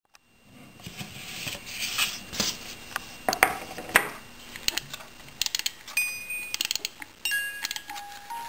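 Shredded paper rustling and sharp clicks and knocks as a gift box is opened and a snowglobe base is handled. From about halfway in, the snowglobe's wind-up music box movement starts plucking single clear notes, one after another.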